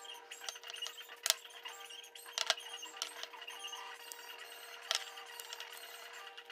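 Small metal carburetor parts and tools clicking and clinking on a work surface as a two-stroke carburetor is taken apart, with three sharper clinks about a second in, at two and a half seconds and near five seconds.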